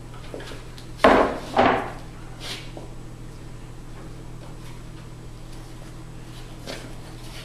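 Two knocks about a second in, as a flat white board is laid down on a wooden workbench, followed by faint sounds of items being handled on the bench.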